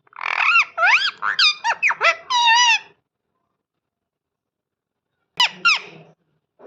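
Parrot calling: a quick run of high, squeaky chirps and bending whistled squawks for about three seconds, then a pause and a few more short calls near the end.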